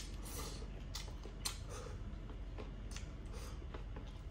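Close-up eating sounds: chewing a mouthful of fried rice, with a few light, sharp clicks of wooden chopsticks against a ceramic plate.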